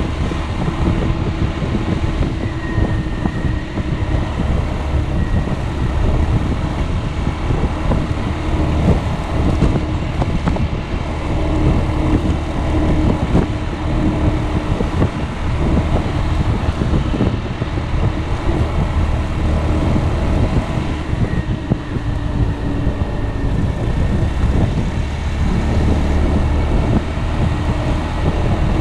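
Piaggio Beverly 300 scooter under way, its single-cylinder four-stroke engine running steadily at cruising speed, with a dense rush of wind and road noise on the microphone.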